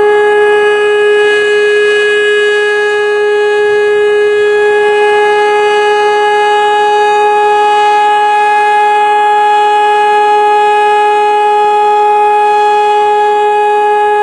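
Civil defense siren sounding one steady, unwavering tone with strong overtones, the steady alert signal.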